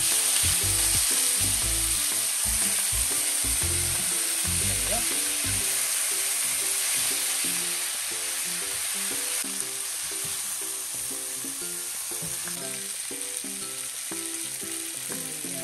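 Chicken breast pieces sizzling in butter with sliced mushrooms, onion and garlic in a frying pan, stirred and turned with a spatula. A steady frying hiss that eases off slightly in the second half.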